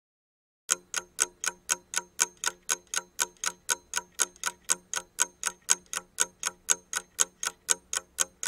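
Steady, evenly spaced ticking at about four ticks a second, starting a little under a second in after dead silence.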